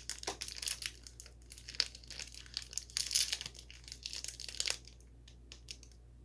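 Crinkly plastic wrapper of a Bourbon Alfort chocolate biscuit being torn open and rustled by hand. The crackling stops about five seconds in, leaving a few faint ticks.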